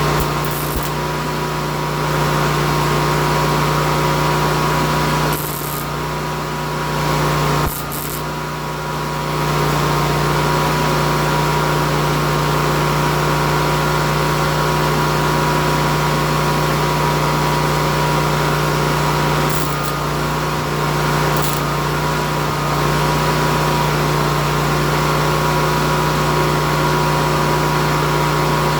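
A power tool motor running steadily with a constant pitch, dipping briefly twice.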